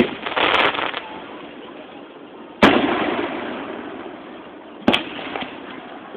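Aerial fireworks shells bursting. There is a short noisy burst about half a second in. A loud bang comes about two and a half seconds in and dies away slowly, echoing, and a sharper, shorter bang follows near the five-second mark.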